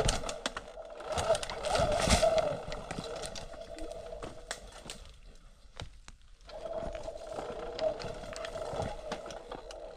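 Electric mountain bike's motor whining steadily while the bike clatters and rattles over a rough trail. The motor whine drops out for about a second and a half in the middle, then comes back.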